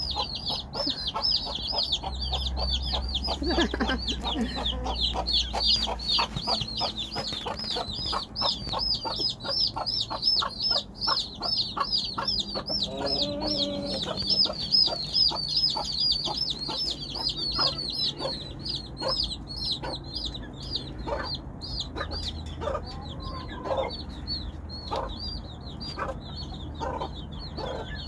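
A mother hen clucking in a steady run of short low notes to call her chicks, the clucks spacing out in the second half. Over it the chicks peep without a break in quick high chirps, about four a second.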